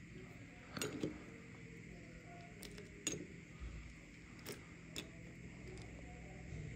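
Metal spoon clinking against a ceramic bowl while stirring and scooping muesli in milk: a handful of sharp, separate clinks spread over several seconds.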